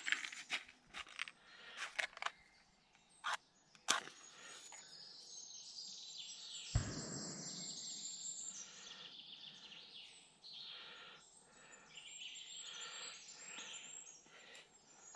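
Crackly handling of a firelighter packet and matchbox, then a match struck about seven seconds in, followed by a steady hiss as it burns. Birds sing through the second half.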